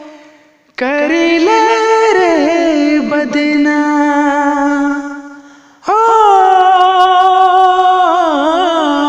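Solo voice singing a Nagpuri song in two long, drawn-out phrases with sliding pitch and a wavering near the end, with little or no accompaniment; a short gap falls between the phrases.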